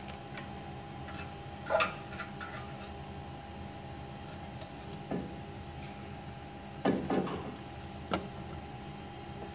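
Sharp plastic clicks and knocks from a replacement ink squeeze pump and the printer's tubing and cables being handled, the loudest just under two seconds in, then more around five, seven and eight seconds, over a steady hum.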